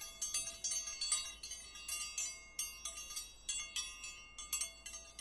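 Quiet tinkling chimes: high ringing tones struck irregularly, about three times a second, each ringing on into the next.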